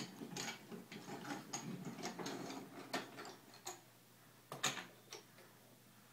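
Wooden toy train pieces and track clicking and knocking together as they are handled on a train table: a run of irregular taps, the sharpest about four and a half seconds in.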